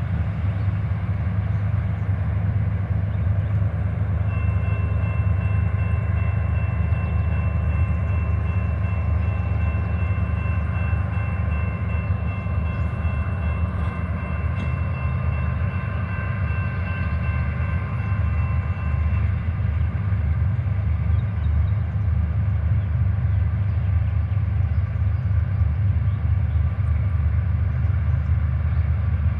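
Railroad grade-crossing warning bell ringing from about four seconds in, stopping at about nineteen seconds once the gate arms are down, over a steady low rumble.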